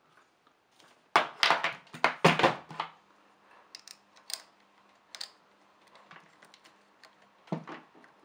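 Metal clicks and clatter of the cam sprocket and timing chain being fitted in a Yamaha R125 cylinder head: a quick run of clicks about a second in, then scattered light ticks and a single knock near the end.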